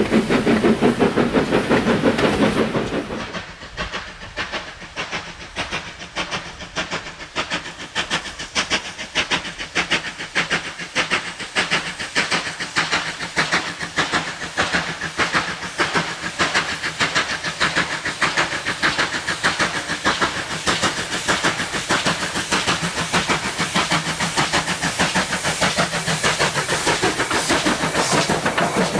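LNWR 'Super D' 0-8-0 steam locomotive No. 49395 approaching and drawing a coach train past, its exhaust chuffing in a fast, even rhythm that grows louder as it nears. For the first three seconds, the coaches of another train rumble loudly past close by, until the sound cuts off sharply.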